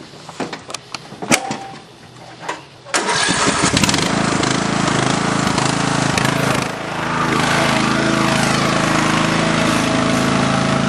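A few sharp knocks and clicks, then a small engine starts abruptly about three seconds in and keeps running steadily, dipping briefly once partway through.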